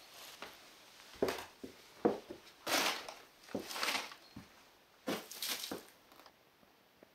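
Footsteps going down wooden stairs and onto a floor littered with debris, with irregular knocks and crunches about once a second.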